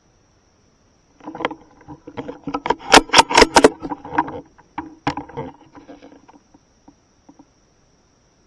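Close-up handling noise from a scoped .17 HMR rifle being swung to a new target: a quick run of clicks, knocks and rustles picked up by a camera mounted on the scope. It is loudest about three seconds in and trails off after about five seconds.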